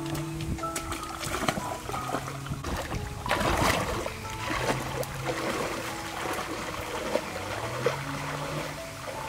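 Background music over water splashing and trickling, with a louder splash about three and a half seconds in.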